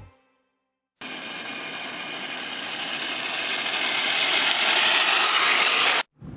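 After a second of silence, a 1/14-scale Tamiya Grand Hauler RC semi truck driving on coarse asphalt: a grinding whir from its drivetrain and tyres that grows steadily louder for about five seconds, then cuts off abruptly near the end.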